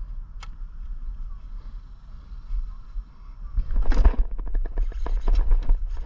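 A sudden splashy burst about four seconds in as a bass strikes the topwater frog and the hook is set. It is followed by rapid clicking from the fishing reel being cranked hard to pull the fish in.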